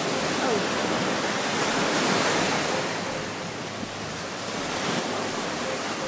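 Small sea waves breaking and washing up a sandy beach. The rush of surf swells to a peak about two seconds in, eases off, then swells again more softly near the end.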